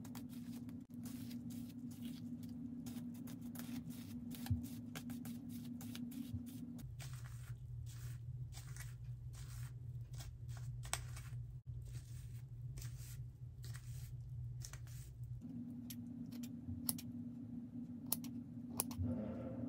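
Plastic fine-tooth comb drawn again and again through a doll's wet nylon hair, many small irregular clicks and scratches over a low steady hum. Near the end, a few separate snips of scissors trimming the hair ends.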